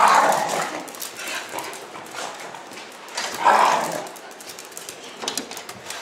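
Jack Russell terrier barking twice, once right at the start and again about three and a half seconds later.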